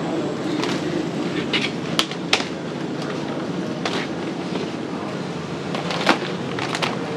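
Plastic crab baskets and live mud crabs being handled: scattered sharp clacks and knocks of the baskets being lifted and set down and crabs scraping against the plastic, the sharpest about two seconds in and just after six seconds. Under it runs a steady background hum.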